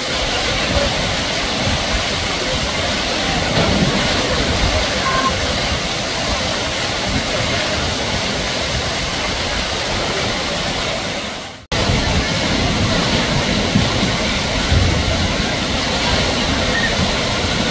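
Steady rush of falling and splashing water from water-park slides and pools. The sound fades out briefly a little past halfway and comes straight back.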